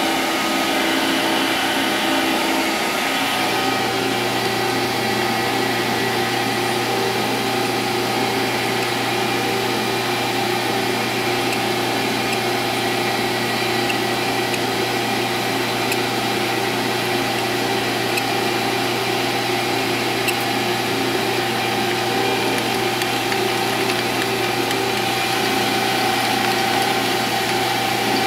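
Benchtop metal lathe running steadily at 720 RPM while a number 14 twist drill in a tailstock drill chuck is fed through a spinning steel workpiece; an even motor-and-gear hum, with a low drone settling in about two seconds in.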